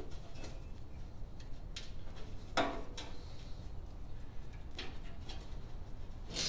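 Scattered metal clicks, knocks and scrapes from hand work on a garden tractor's muffler and exhaust pipe, the loudest about two and a half seconds in, over a low steady hum.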